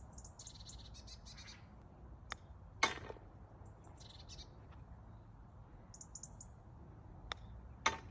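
Two sharp clicks of a golf club striking a golf ball on short chip shots, about five seconds apart. Birds chirp in short bursts between them.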